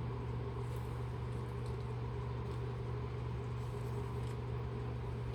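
A steady low hum in the background, with a few faint soft ticks.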